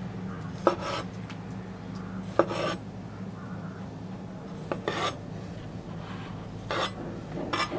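A large cleaver-style knife slicing small plum tomatoes in half on a wooden board. Separate cuts come every one to two seconds, each a short crisp slice ending as the blade meets the wood.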